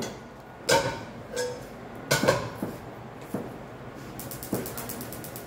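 Chef's knife knocking on a plastic cutting board as garlic cloves are sliced: a handful of irregular knocks, two of them louder with a short ring like kitchenware clinking.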